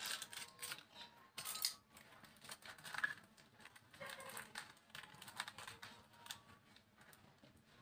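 Small scissors snipping at a plastic fish bag: a run of faint, short clicks.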